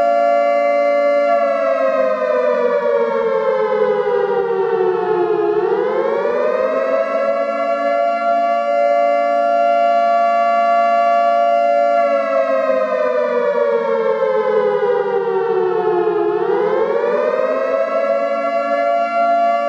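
Air raid siren wailing in a chord of several tones. It holds a steady pitch, slides down over about four seconds and swings back up, and does this twice.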